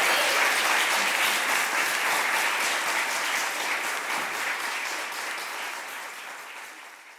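Audience applauding, a room full of people clapping, fading out over the last few seconds.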